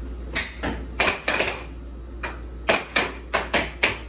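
Air hockey game in play: the plastic puck clacking sharply against the mallets and the table's rails, about a dozen quick irregular hits in four seconds, over a steady low hum.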